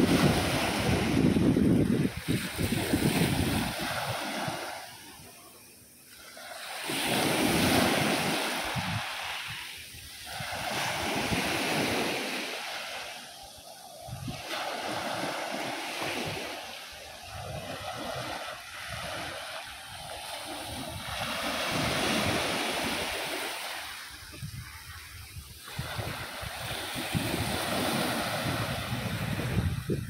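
Small sea waves breaking and washing up a dark pebble beach. The surf swells and fades every few seconds, loudest at the start.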